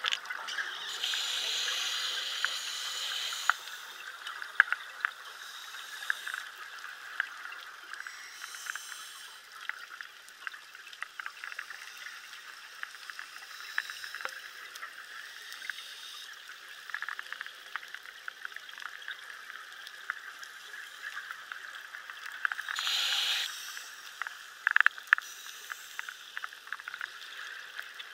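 Underwater sound on a reef dive: a steady hiss with scattered clicks and crackles throughout. Louder rushes of bubbling noise, typical of a scuba diver's exhaled bubbles, come during the first few seconds and again about 23 seconds in.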